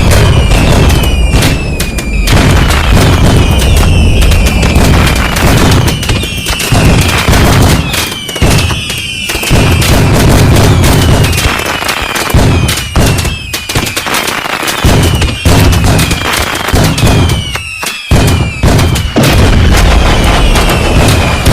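A dense, continuous barrage of fireworks: overlapping bangs and booms with crackle, and short falling whistles from whistling fireworks recurring every second or two.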